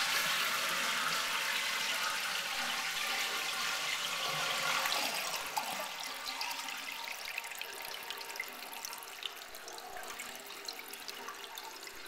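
Eljer Patriot toilet tank refilling after a flush: water from the fill valve and refill tube pours and splashes onto the bottom of the emptied tank. The rush is steady at first and eases off gradually over the second half.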